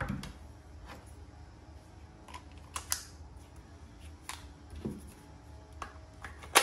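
Scattered light plastic clicks and taps, with a sharper click near the end, from handling the Ryobi 18V multi-tool and its snap-on attachment heads.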